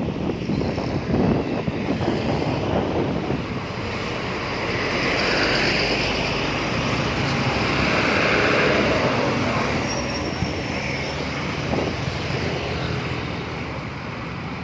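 A bus passing by on the road: engine and tyre noise swelling to a peak about eight seconds in, then fading, with wind buffeting the microphone. No musical telolet horn tune is heard.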